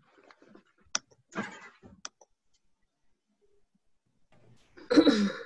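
Two sharp clicks with faint scattered rustling, picked up through video-call microphones, then a short burst of a voice near the end.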